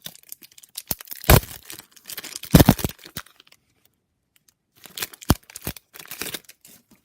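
A trading-card pack's wrapper being torn open and crinkled by hand, in several short bursts with quiet gaps between.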